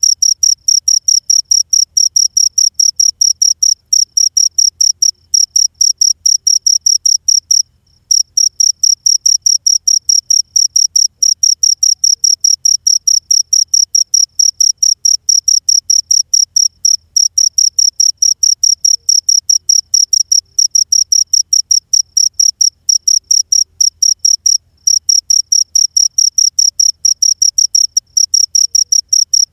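Cricket chirping: a loud, even train of short high-pitched chirps on one tone, several a second, with a brief pause twice.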